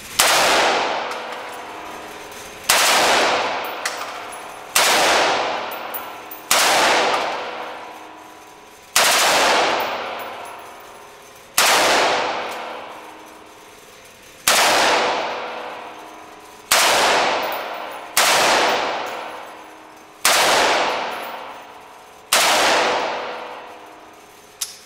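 M4 carbine (5.56 mm) firing single shots, eleven in all, spaced about two to three seconds apart. Each shot echoes through the indoor range and fades over a second or two.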